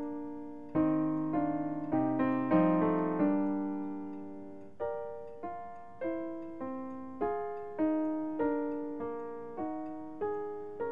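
Slow, gentle solo piano music: single notes and soft chords struck one after another, each ringing and fading before the next.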